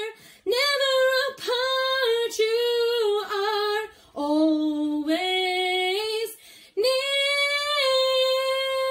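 A woman singing solo and unaccompanied, in short sung phrases with brief breaks between them, ending on a long held note.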